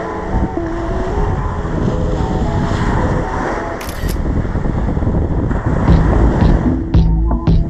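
Wind buffeting the microphone under a background music track. About six seconds in, a heavy, regular bass beat comes in.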